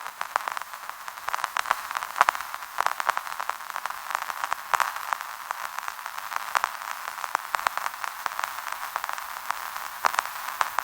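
Gramophone record surface noise: a steady hiss with irregular crackles and pops, thin and almost without bass.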